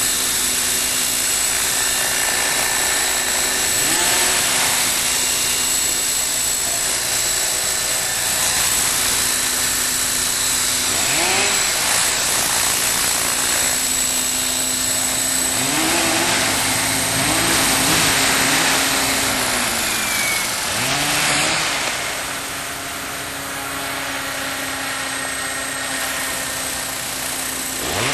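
Radio-controlled model helicopter flying, its motor and rotor giving a steady hum with a high whine over it. The pitch swings up and back down several times as it manoeuvres.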